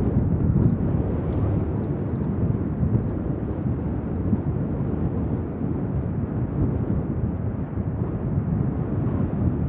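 Steady low rumble of C-130J Super Hercules aircraft taxiing, their four-engine Rolls-Royce AE 2100D3 turboprops running.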